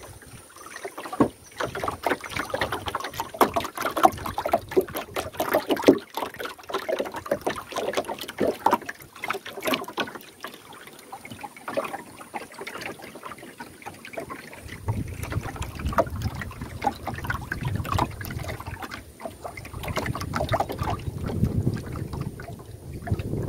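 Water splashing and small irregular knocks around a small wooden fishing canoe, many short sounds one after another. In the last several seconds a low wind rumble on the microphone comes in under them.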